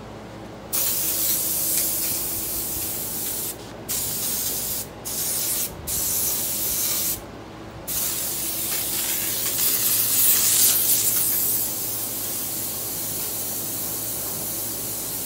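Airbrush spraying paint: a hiss of compressed air that starts about a second in and is cut by several short pauses in the first half, then runs unbroken through the second half.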